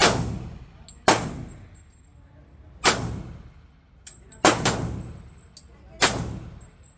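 Glock 23 Gen 3 pistol in .40 S&W fired six times at an uneven pace, about a second or more apart, with a quick pair of shots just after the middle; each report echoes briefly.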